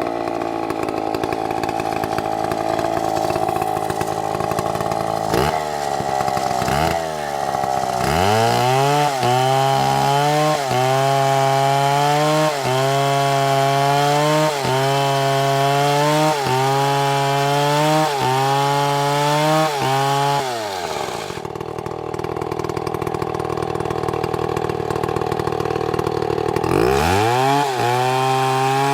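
Two-stroke chainsaw cutting a dead palm trunk, running hard the whole time. Its pitch keeps falling and climbing back, for a while in a regular cycle about every two seconds as the saw loads and recovers, then settles lower for several seconds before rising again near the end.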